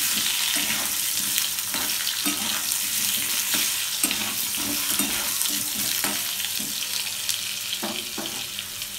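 Potato and eggplant wedges sizzling and crackling in hot oil in a kadai, turned and scraped with a metal spatula; the stirring stops near the end while the frying goes on.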